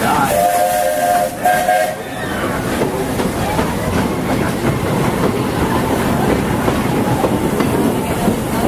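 Steam locomotive whistle of the Walt Disney World Railroad sounding two blasts, a longer one then a short one, a chord of several tones. Under and after it the moving train runs with a steady rumble and clatter.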